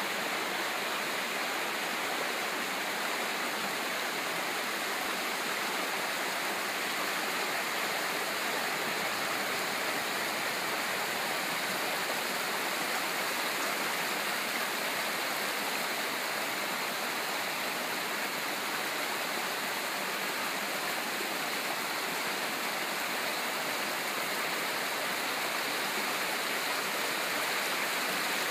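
Small rocky creek tumbling over low cascades: a steady sound of running water.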